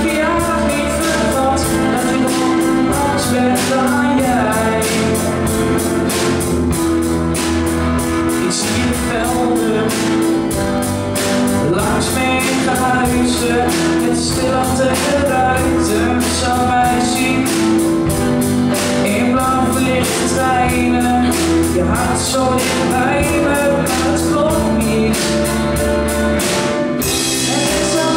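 A teenage boy sings a Dutch pop ballad over a live band of drum kit, bass guitar, guitars and keyboards, with a steady drum beat.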